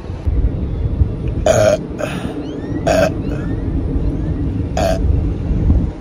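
A woman burping three short times, a second or two apart, gas brought up by gulping a carbonated soda.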